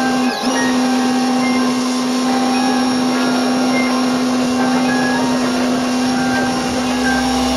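Qualcast electric pressure washer running steadily with a constant motor hum, dipping briefly about half a second in.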